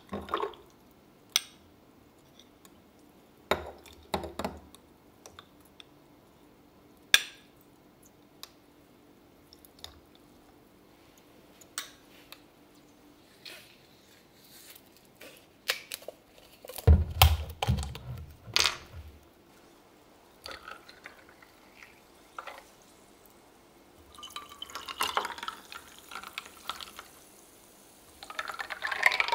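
Glassware and a spoon clinking and tapping, with a few soft thuds of things set down on the table about halfway through. Near the end, sparkling water is poured from a plastic bottle over ice into the glasses, in two pours.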